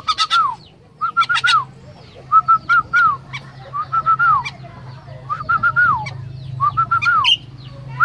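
Caged jalak (myna) calling, repeating the same short phrase about once a second: three or four quick clipped notes ending in a downward slur, each set off with sharp clicks.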